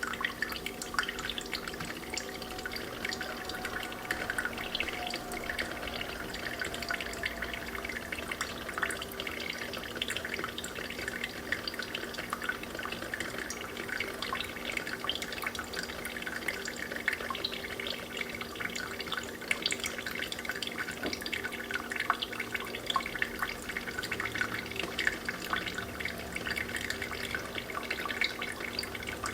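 Freshly brewed coffee dripping and trickling into a glass pot, a steady patter of fine drips, over a faint steady hum.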